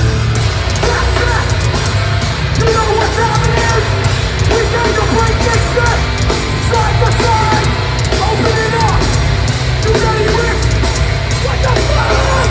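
Hardcore band playing live at full volume through a large PA, heard from the crowd: heavy distorted guitars, bass and drums with crashing cymbals, and shouted vocals coming in about a second in.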